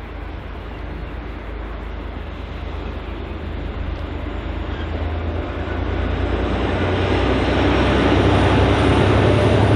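A train approaching on the line, its rumble growing steadily louder.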